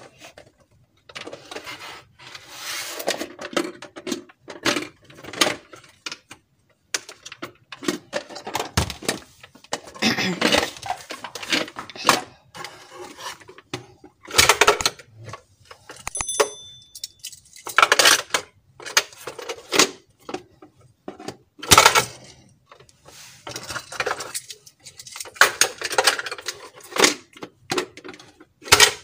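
Hard plastic toy parts handled by hand: irregular clicks, knocks and clatter as a plastic toy jet's canopy and pieces are moved and set down on a table.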